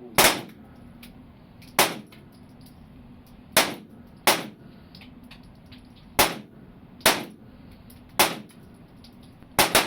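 A string of about nine gunshots fired at irregular intervals, the last two in quick succession, each with a short echoing tail.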